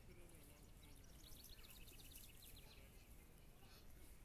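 Near silence: faint outdoor background, with a faint, high, quick trill of repeated notes lasting about a second and a half, starting about a second in.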